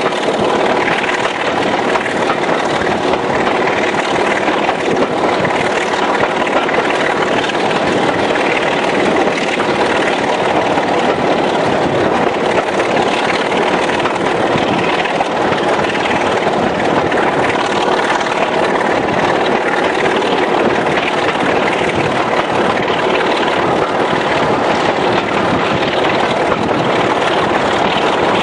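British Rail Class 25 diesel locomotive's Sulzer six-cylinder engine working steadily under power, heard from the train close behind it, blended with the rush and rail noise of the moving train.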